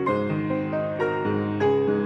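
Slow instrumental keyboard music, piano-like, with new notes and chords struck every half second or so.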